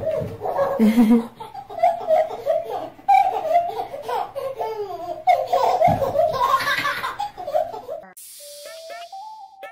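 Baby belly-laughing over and over in long giggling bursts. About eight seconds in it cuts to bouncy music with a synthetic singing voice.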